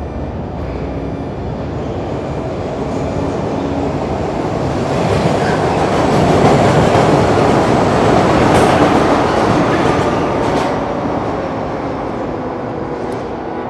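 Metro train passing through an underground station, its wheel and running noise swelling over several seconds, loudest midway, then fading away.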